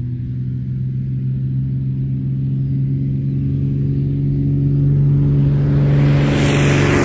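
Bearhawk light aircraft at full takeoff power: a piston engine and propeller droning with a steady low hum, growing louder as the plane lifts off and climbs toward the listener, its pitch starting to drop near the end as it passes.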